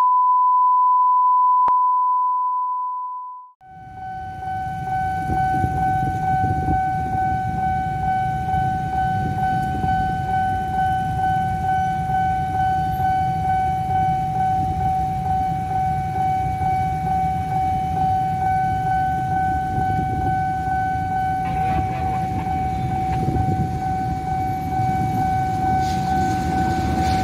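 A steady 1 kHz test tone over a colour-bar countdown for about three and a half seconds. Then a railway level-crossing warning alarm sounds one unbroken high tone, with a low rumble underneath, until a diesel locomotive reaches the crossing near the end.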